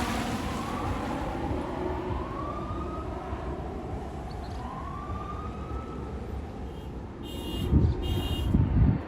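Roar of a jet airliner on approach fading away after passing low overhead. A distant siren rises in pitch three times, and two louder bumps come near the end.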